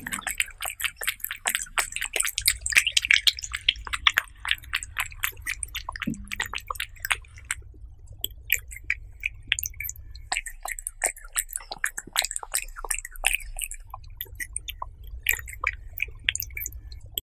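A cat eating wet minced chicken-and-egg food close to the microphone: a quick run of wet smacking and lapping clicks, easing off briefly about seven seconds in, then going on more sparsely.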